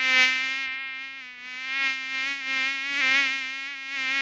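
A mosquito's buzzing whine: one steady buzzing tone with a slight waver in pitch, swelling louder and softer several times.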